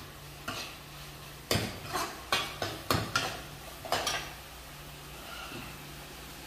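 A ladle knocking and scraping against a kadai as chopped carrots and onions are stirred while frying in butter: a quick run of clatters that stops about four seconds in. The vegetables sizzle faintly underneath.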